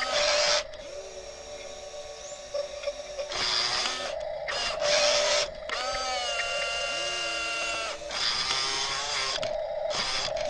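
Electric motors of a radio-controlled wheel loader whining in bursts as it drives and works its arm and bucket, the pitch rising and falling.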